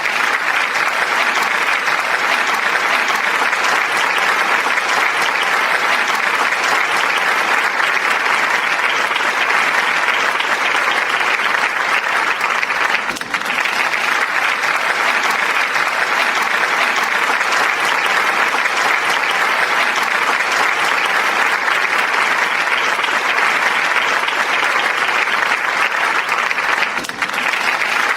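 Sustained applause from an audience: dense clapping at a steady level that dips briefly twice, about halfway through and near the end.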